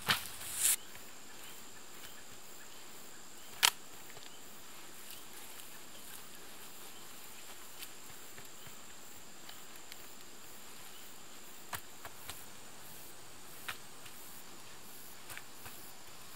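Quiet outdoor background with a thin, steady high-pitched tone, broken by a few sharp clicks and taps: a short burst of noise at the start, one loud click about three and a half seconds in, and several small clicks near the end.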